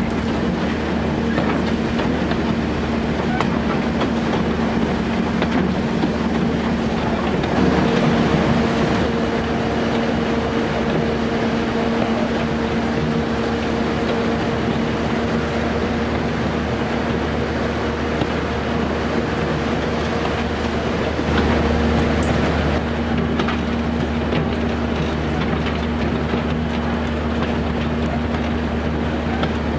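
Diesel shunting locomotive's engine running steadily under load as it hauls a brake van, over the rumble of wheels on the rails. The engine note shifts briefly about a quarter of the way in and again about two-thirds through.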